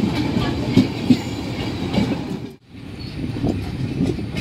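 Passenger train of LHB coaches rolling along a station platform, a steady rumble with irregular wheel knocks. About halfway through, the sound cuts out briefly and comes back as the running noise heard from the open doorway of the moving train.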